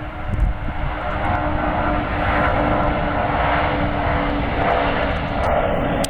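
Engines of a large jet transport aircraft passing close by, a loud steady rush with a droning tone. It builds over the first second, then holds.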